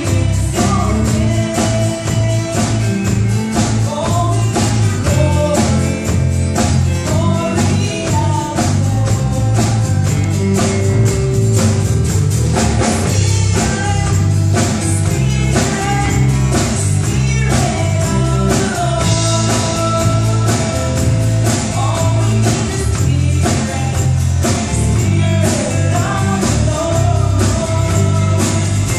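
Live gospel song played by a band through a church PA: a woman singing lead over guitar, a strong bass line and a steady shaken tambourine.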